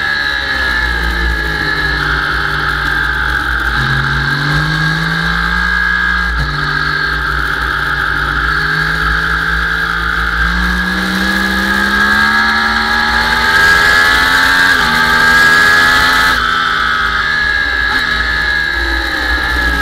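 Sport motorcycle engine heard from an onboard camera at speed, with wind rumble on the microphone. The revs fall as the bike slows into a corner, then climb in steps through the gears as it accelerates, loudest in the last third, and drop again near the end.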